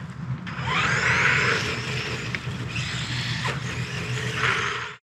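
Battery-powered 4x4 remote control truck driving, its electric motor whining and rising in pitch as it speeds up about half a second in and again near the end, over a steady rushing noise. The sound cuts off suddenly at the very end.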